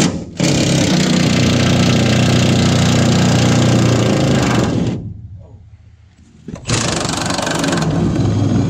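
Milwaukee cordless impact wrench hammering rusted truck-bed mounting bolts loose: one long run of about four seconds, then a second shorter run of about two seconds near the end.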